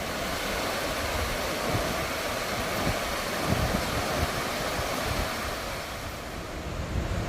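Mountain stream water rushing over rocks: a steady, even rush, with irregular low rumbling from wind on the microphone underneath.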